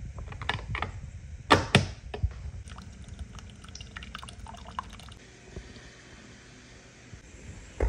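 Single-serve pod coffee maker: two loud clunks and some clicks as it is handled, then coffee pouring from the spout into a mug, with scattered small clicks.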